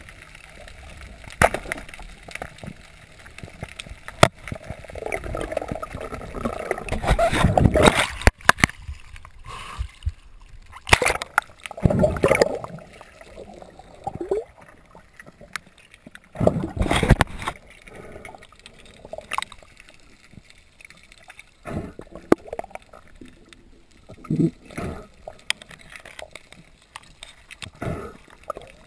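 Water gurgling and sloshing around a freediver's action camera as it moves underwater and through the surface, with irregular swells and a few sharp knocks.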